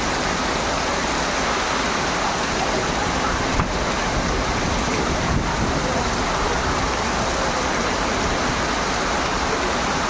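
Storm with extreme wind and heavy rain: a steady, unbroken rushing noise, with one brief thump about three and a half seconds in.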